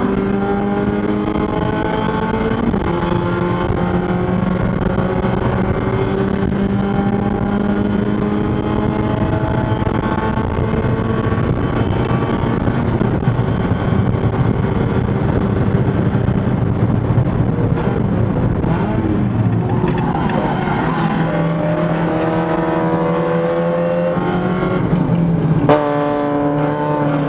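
Spec Miata's four-cylinder engine racing, heard from inside the stripped cockpit. The engine note climbs slowly under load, drops with a gear change about three seconds in, and there is a sharp knock near the end as the note changes.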